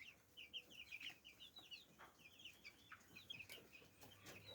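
Faint peeping of a flock of two-week-old broiler chicks: many short, high chirps overlapping throughout.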